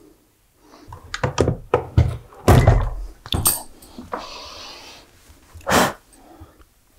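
Several dull knocks and thumps of things being handled at a sewing table, then a short rustling hiss about four seconds in and one brief scuff near the end.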